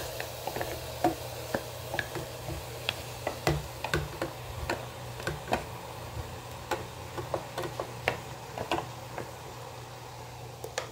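A metal spoon tapping and scraping against a mixer jar, working thick ground masala paste out into a pressure cooker: irregular light clicks and taps, over a steady low hum.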